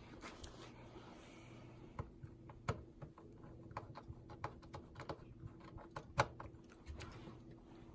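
Irregular light clicks and taps from hands working on the parts of an OKPOS Optimus J19 POS terminal, over a faint steady hum.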